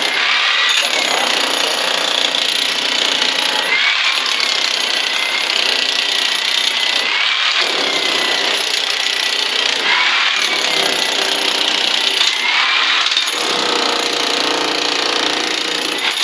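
A loud power tool running continuously, surging about every three seconds, then cutting off abruptly at the end.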